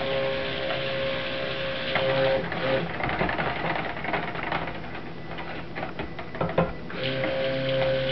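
Electric stick blender running steadily in a plastic bucket of cold process soap batter, blending just-added lye solution into the oils. The motor stops about two and a half seconds in, a few knocks follow as the blender head moves in the batter, and it starts up again about seven seconds in.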